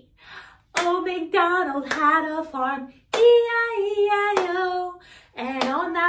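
A woman singing a children's song with long held notes, with a hand clap about every second and a bit.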